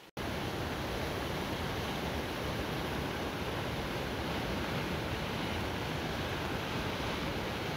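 Steady, even rushing of a fast-flowing mountain river's white water, with no change over the few seconds.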